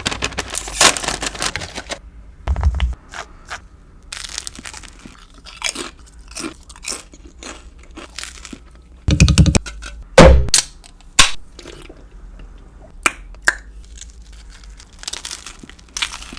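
Close-miked eating of a chicken sausage and pepper sandwich: crunchy bites and chewing in an irregular run of sharp crackles, with a few heavier bites about nine to ten seconds in.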